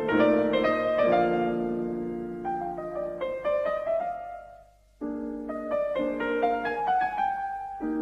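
Piano music, a melody of held notes and chords. It fades out about four and a half seconds in and starts again abruptly half a second later.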